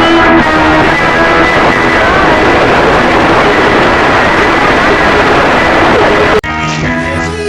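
Heavily distorted, loud remix audio: a dense noisy wash with held notes layered through it. About six seconds in it cuts off abruptly and guitar-led music begins.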